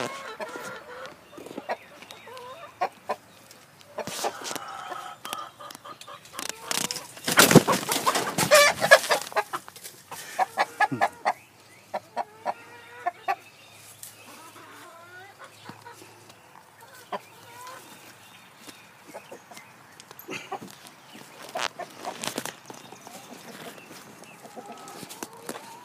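Rooster clucking and squawking in alarm while being caught, with the loudest burst of squawking about eight seconds in, followed by a run of short clucks.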